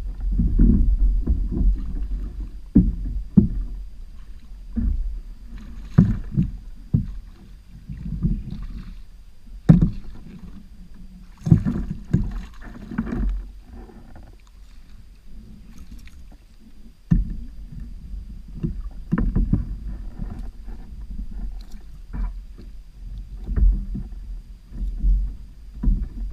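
Irregular knocks and thumps on a plastic Wilderness Systems fishing kayak's hull, over a steady low rumble of water against the boat.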